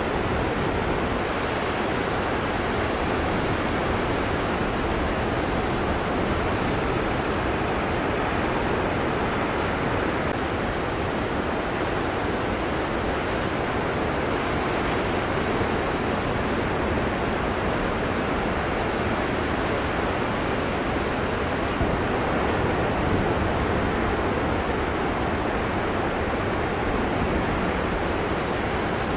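Ocean surf breaking, heard as a steady, even rush of noise, with some wind on the microphone.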